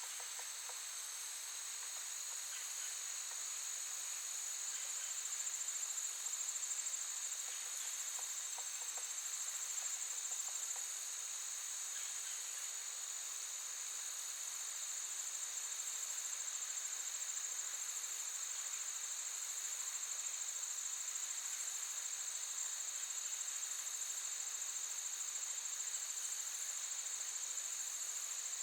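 Crickets chirping in a steady, high-pitched, continuous trill.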